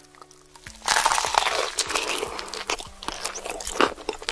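Close-miked crunching of crispy fried-chicken crust being bitten and chewed, starting sharply about a second in, with many crisp crackles. Soft musical notes are heard briefly before the first bite.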